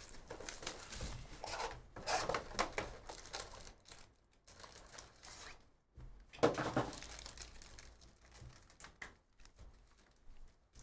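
A cardboard hobby box of trading cards torn open and its foil-wrapped packs pulled out and handled, in irregular bursts of tearing and crinkling, loudest about six seconds in.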